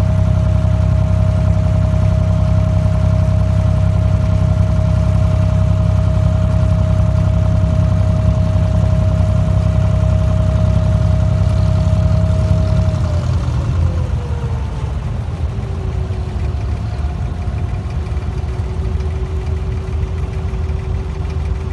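Diesel engine of an abra water taxi running steadily with a deep hum and a steady whine. A little over halfway through it is throttled back: the whine glides down and settles at a lower pitch and the engine grows a little quieter as the boat slows toward the landing.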